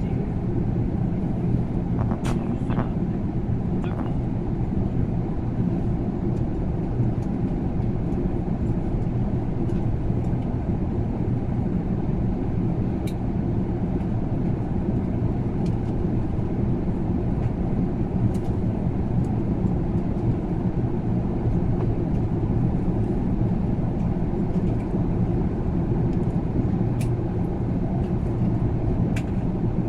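Airbus A380 passenger cabin noise: a steady low drone of engines and airflow heard from inside the airliner, with a few faint clicks.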